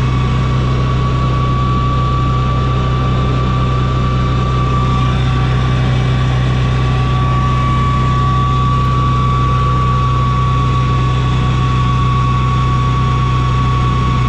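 A vehicle engine running steadily, a low drone with a thin, steady whine over it.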